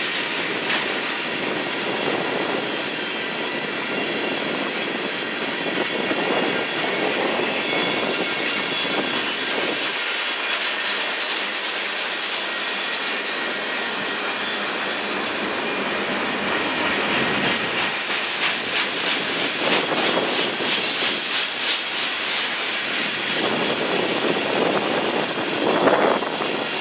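Freight train cars rolling past at speed: a steady rumble and hiss of steel wheels on rail. The clickety-clack of the wheels over the rail joints becomes more distinct and rhythmic in the second half.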